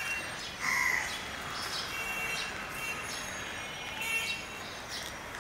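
Outdoor city background noise, steady, with small birds chirping and a crow cawing once about a second in.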